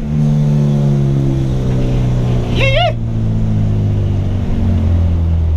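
Honda K20 inline-four engine in a swapped Civic running on the road, with a brief dip in sound right at the start, then revs slowly falling and settling to a lower note about four and a half seconds in. A short high-pitched sound comes about two and a half seconds in.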